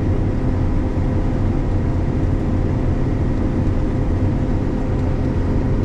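Combine harvester running steadily while cutting soybeans: an even low machine drone with a faint steady tone above it.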